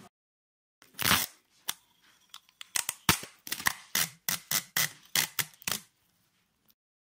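A series of sharp clicks or knocks: one louder, longer knock about a second in, then a quick, irregular run of clicks, a few a second, that stops about two-thirds of the way through.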